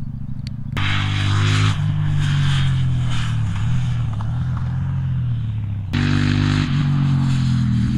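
A KTM 890 Duke R's parallel-twin engine pulling hard past the microphone, heard in spliced clips: on the stock OEM exhaust from just under a second in, then cutting abruptly about six seconds in to the same bike on an Austin Racing V3 Mini slip-on, its engine note falling as the bike goes by.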